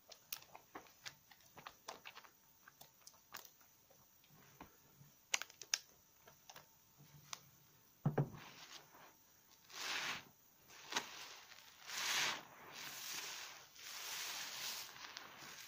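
Hands squishing a bar of soap in thick lather: a run of small wet crackles and pops of foam. Later come longer wet swishing squelches as a soaked sponge is squeezed in the suds.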